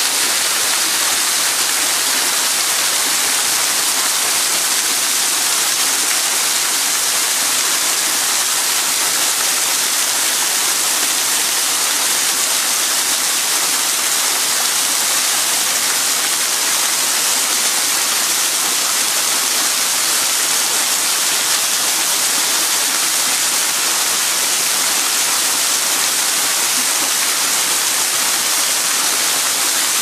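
Waterfall pouring down a rock face: a loud, steady rush of falling water that never breaks or changes.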